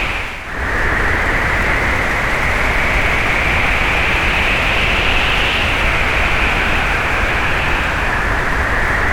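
Hurricane-force wind sound effect: a steady, loud rush of storm wind with a high hissing whistle over a low rumble, dipping briefly about half a second in.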